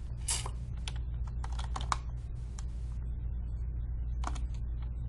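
Scattered clicks of a computer keyboard and mouse, a few at a time with short gaps between them, over a steady low hum.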